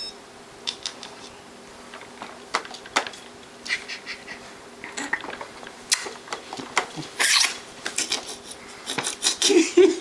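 Scattered clicks, taps and clattering knocks of hard plastic baby toys on an UltraSaucer activity centre being handled and banged, with a short louder noisy burst a little past seven seconds. A baby's voice starts just before the end.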